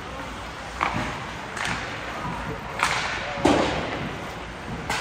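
Ice hockey play echoing in a rink: sharp clacks of sticks and puck and thuds against the boards, five in all, the loudest about three and a half seconds in.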